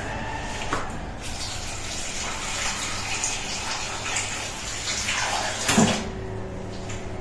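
Water running from a tap into a steel bowl of cut potatoes being rinsed of their starch. There is a brief knock near the end, and the water stops about six seconds in.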